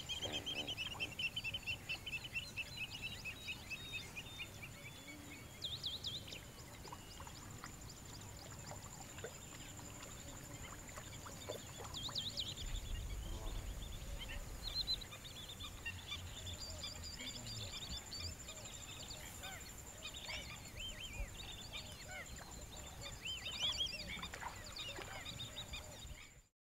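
Outdoor wetland ambience with many birds calling in short chirps and trills, over a steady high-pitched whine that drops out briefly about midway. The sound cuts off abruptly just before the end.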